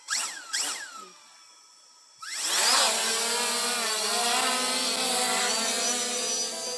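Two quick falling whooshes, then about two seconds in a quadcopter drone's motors spin up with a rising whine and settle into a steady, loud buzzing hum.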